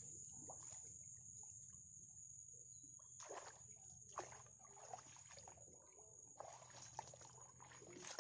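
Faint splashing and sloshing of shallow muddy water with crackling of wet brushwood as fish are picked out of a lifted brush pile by hand, in irregular clusters. A thin steady high-pitched whine runs underneath.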